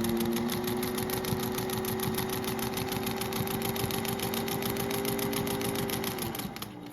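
Singer 201 sewing machine running at speed, stitching through denim with a short stitch length: a motor hum under a rapid, even clatter of needle strokes. Near the end the motor winds down with a falling pitch and stops.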